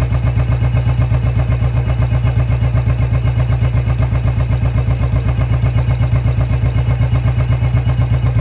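Royal Enfield Bullet 350's single-cylinder engine running steadily in gear with an even thudding beat of about eight to nine pulses a second, driving the rear chain, which has just been oiled with engine oil to cure its chain noise.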